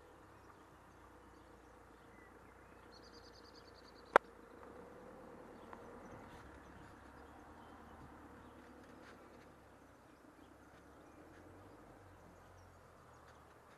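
Quiet outdoor ambience with a bird's short chirping phrase about three seconds in. About a second later comes a single sharp click, the loudest sound.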